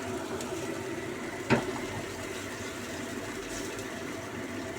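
Steady hiss of a pot of seasoned water heating on the stove, with a single sharp clink about a second and a half in.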